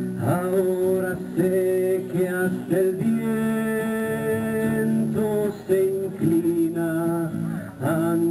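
Music: a song accompanied by strummed acoustic guitar, in a passage without sung words.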